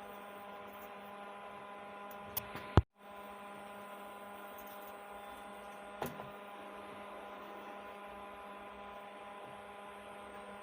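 Steady electrical mains hum with a stack of overtones, from the powered-on power amplifier under test. A few short clicks cut in, the loudest just under three seconds in, followed by a brief dropout.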